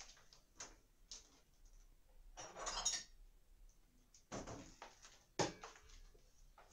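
Metal spoon clinking and scraping against a glazed earthenware dish as ground spice is tipped in: a few light clicks, a longer scraping rustle about two and a half seconds in, and sharper clinks between four and a half and five and a half seconds in.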